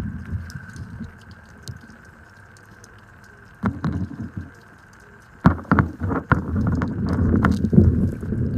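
Muffled low rumbling of water with knocks and bumps against a submerged camera, heavier from about five and a half seconds in, and a faint steady high whine underneath.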